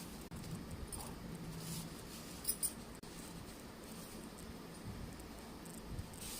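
Pencil scratching and sliding on paper while lines are drawn, with two sharp clicks about two and a half seconds in.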